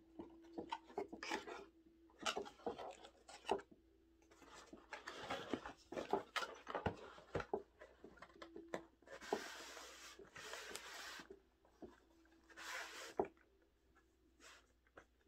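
Cardboard headphone box being handled and opened by hand: cardboard rubbing and scraping with small clicks and taps, and two longer sliding scrapes about nine and twelve seconds in.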